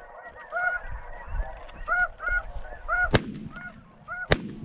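Snow geese honking over and over, high-pitched and continuous, with two shotgun blasts about three seconds and four and a half seconds in as hunters shoot into the flock.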